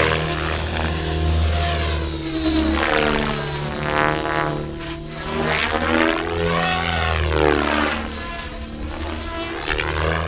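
ALIGN T-REX 700X radio-control helicopter flying hard aerobatics: its main rotor blades and drive whine and chop, the pitch sweeping up and down several times as it manoeuvres and passes.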